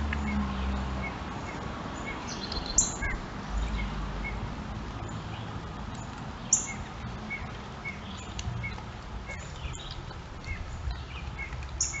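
Wild birds calling: a series of short high notes repeated every half second or so, with a few louder, sharp, very high chips about three seconds in, near seven seconds and near the end.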